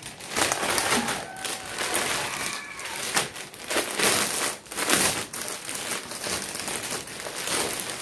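Clear plastic packaging crinkling and rustling irregularly as a dupatta is unwrapped and pulled out of its plastic bag.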